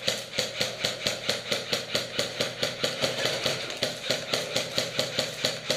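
Airsoft rifle firing a rapid, even stream of single shots, about five a second, with no letup.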